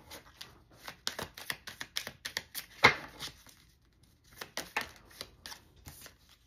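A deck of oracle reading cards being shuffled by hand: a run of quick, irregular papery flicks and taps, with one sharper snap near the middle, a short lull, then more shuffling.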